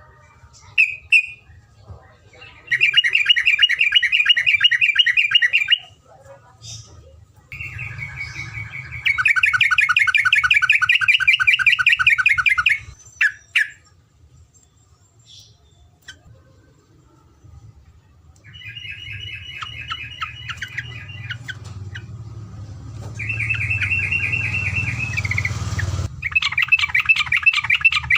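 Terocok songbird singing long, very rapid rolling trills of repeated notes, several runs of a few seconds each with short pauses between.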